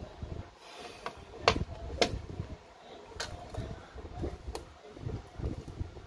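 Handling noise from a disassembled smartphone and its back cover: a few sharp clicks and taps of plastic parts against a table, the loudest two about a second and a half and two seconds in, over a low background rumble.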